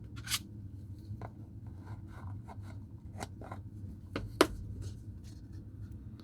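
Hands handling a watch and its packaging: scattered light clicks, taps and rustles as the watch is put back into its box, with a sharper click about four seconds in.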